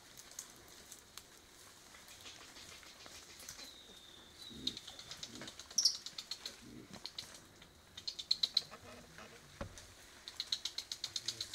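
Forest birds calling: a slow falling whistle about four seconds in, then bursts of rapid high trilled notes, about ten a second, that come back twice toward the end. A few soft low sounds come in between them.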